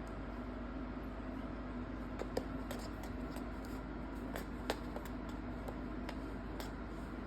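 A few light, sharp taps and clicks, scattered irregularly, over a steady low hum.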